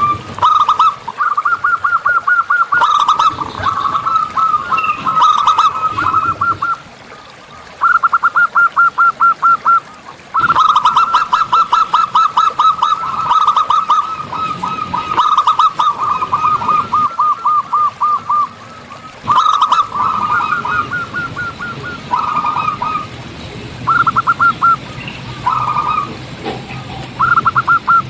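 Zebra doves (perkutut) cooing: loud trains of short, quickly repeated notes in bursts of a few seconds with brief gaps, the longest run starting about ten seconds in and lasting about six seconds.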